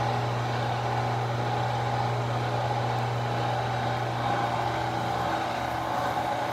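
Alliant vertical knee milling machine running steadily, its spindle turning an end mill to cut a metal bracket, with a steady low hum. The owners say the mill's head is shot and gives a growling noise.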